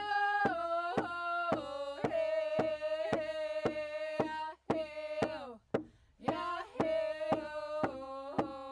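Two women singing together to a steady beat on a rawhide hand drum, about two beats a second. The song breaks off for about a second and a half near the middle, then the singing and drumming start again.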